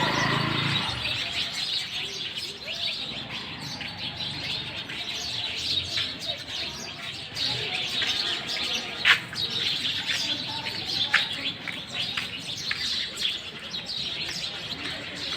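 A dense chorus of many small birds chirping, short high calls overlapping without a break, with one louder, sharper call about nine seconds in.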